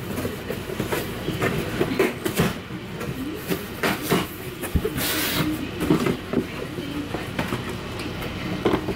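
Cardboard shipping box being opened by hand: flaps folded back and cardboard rustling and knocking irregularly, with a brief rasping hiss of cardboard about five seconds in and a shoebox slid out near the end.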